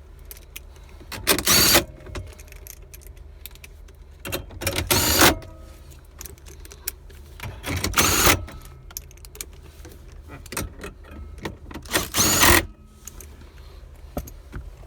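Plastic dash trim and radio parts being handled in a car's cabin: four short bursts of rustling and scraping, a few seconds apart.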